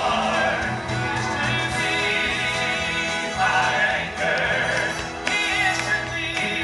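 Male gospel quartet singing in harmony, several voices holding long notes together with vibrato.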